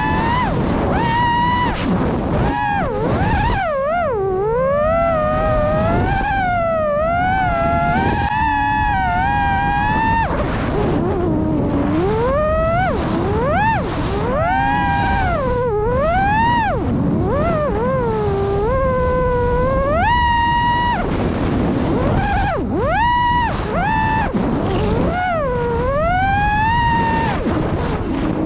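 Electric motor and propeller of a Fossilsstuff Tomahawk FPV plane whining in flight, the pitch swooping up and down again and again as the throttle is worked and often held at a steady top note. Wind rushes over the onboard microphone underneath.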